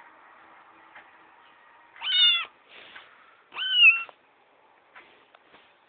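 Ginger kitten meowing twice, two short high-pitched mews about a second and a half apart.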